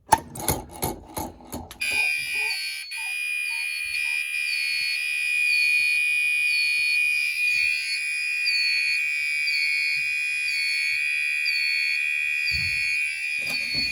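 Fire alarm notification appliances sounding a mass notification severe weather or hazard alert: rapid pulsing for about the first two seconds, then several steady high-pitched tones together with a short repeating chirp about once a second.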